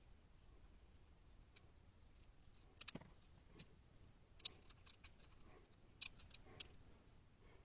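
Light clicks and clinks of small metal jigsaw parts being handled and set down, several separate clicks, the sharpest about four and a half seconds in, over near silence.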